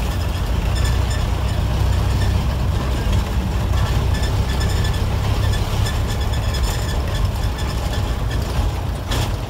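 The 1990s Mitsubishi engine of an old medium bus running under way, heard from inside the cabin: a loud, steady low drone with road noise coming through the open windows. A brief sharp noise near the end.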